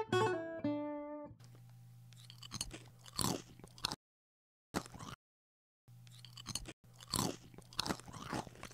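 A short plucked-string tune over the opening, then crunching and chewing sound effects in bursts for a cartoon cockroach eating a small piece of food, over a low hum. The sound cuts out completely twice around the middle.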